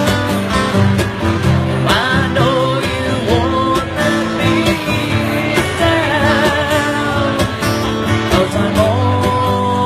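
Live acoustic music: two acoustic guitars played together, with a sung vocal line over them.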